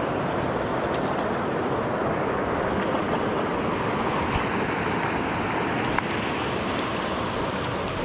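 Rocky mountain river rushing steadily over a riffle close by, a continuous even wash of moving water.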